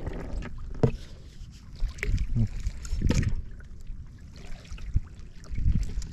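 Water slapping and sloshing against a small boat's hull, with a low rumble throughout and a few irregular knocks.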